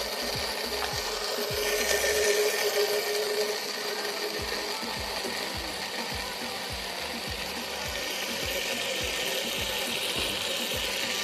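Countertop blender motor running steadily, puréeing a sauce of onion, rocoto peppers, garlic and oil.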